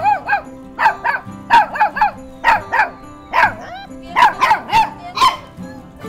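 A small dog barking over and over in short, high-pitched barks, often two or three close together, about fourteen in all. Background music plays steadily underneath.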